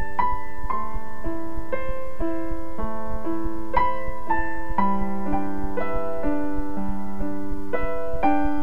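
Background piano music, single notes struck about twice a second over held lower notes.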